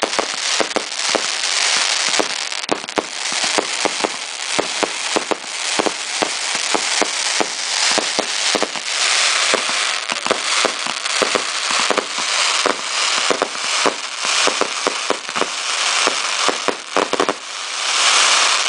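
Fireworks finale: rapid, overlapping bangs of aerial shells, several a second, over a continuous hiss and crackle, swelling into a louder crackle near the end.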